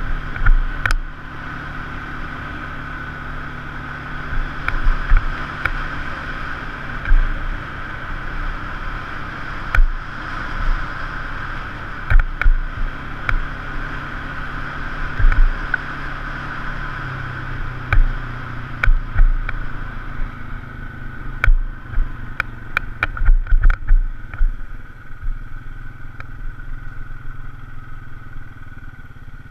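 Side-by-side UTV (Polaris RZR) engine running steadily while driving a rough dirt trail, with frequent sharp knocks and clatter as the machine jolts over bumps. The knocks bunch together around the middle and again a little past two-thirds of the way through.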